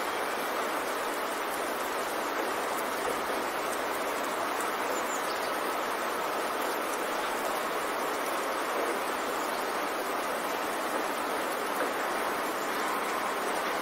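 A steady, even rushing noise, strongest in the middle range, with no swells, breaks or distinct events. It is the kind of masking sound bed that subliminal audio is laid under.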